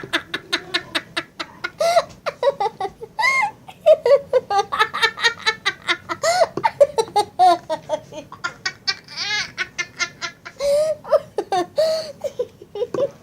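Girls laughing hard in long fits of rapid, high-pitched giggles that break off near the end.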